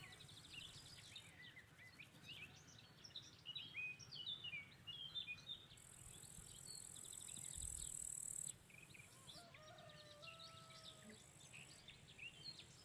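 Faint chorus of small birds chirping, with a high, steady insect buzz that comes and goes in stretches of a second or more, loudest from about six to eight and a half seconds in. A few longer whistled bird notes sound near the end.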